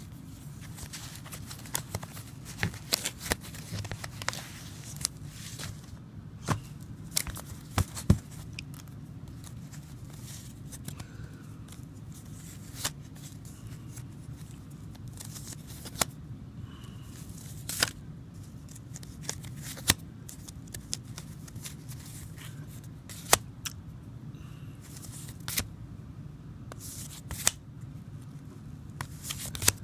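View-Master reels and their paper sleeves being handled and flipped through: irregular light clicks, taps and paper rustles over a steady low hum.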